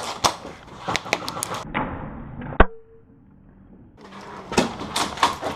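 Airsoft skirmish: an irregular run of sharp clicks and knocks from airsoft guns firing and BBs striking, with one loud crack about two and a half seconds in. A quieter, dull lull of about a second follows before the clicks start again.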